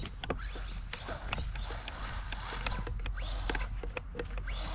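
Footsteps crunching on loose dirt and grit, as a run of short sharp clicks, over a steady low rumble of wind on the microphone. A faint whine of a distant electric RC truck motor rises and falls in the middle of it.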